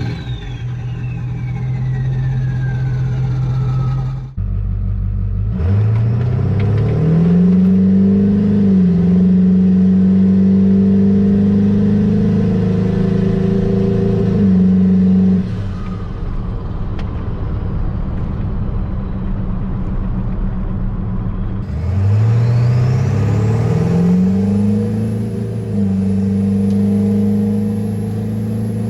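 Ford 7.3 Powerstroke V8 turbodiesel pulling hard from a stop in spliced 0-to-50 runs. In each of two runs the revs climb, dip briefly at a gear change and then hold high. In the first few seconds a whistle falls in pitch as the engine runs on.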